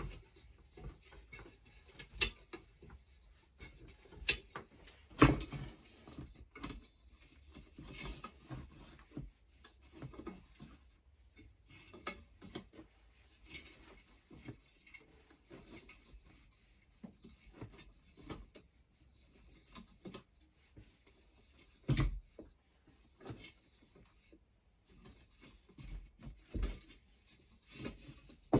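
Irregular metal clicks, knocks and scrapes of hand tools working the spokes and spoke nipples of a bicycle wheel, as stuck spokes are freed with mole grips (locking pliers). A few sharper knocks stand out, a couple of seconds in, around four to five seconds in, and again past the twenty-second mark.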